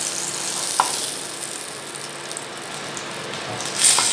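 Fried koi fish sizzling in hot mustard oil in a nonstick frying pan as they are lifted out with a wooden spatula: a steady sizzle, a light click about a second in, and a brief louder burst of sizzling near the end.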